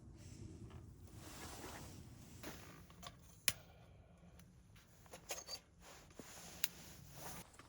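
Handling noises from a telescopic stainless-steel fire-blowing pipe being worked by hand: low rustling with a few sharp clicks, the loudest about halfway through and another near the end.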